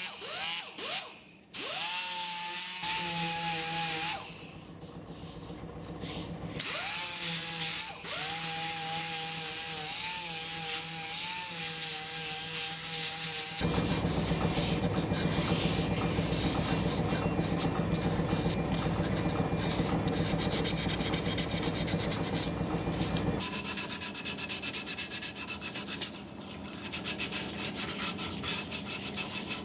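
A small handheld drill whirring on a carved wooden cup in two runs, each spinning up to a steady high whine. After that, sandpaper rubbing on the wood, in quick, even back-and-forth strokes near the end.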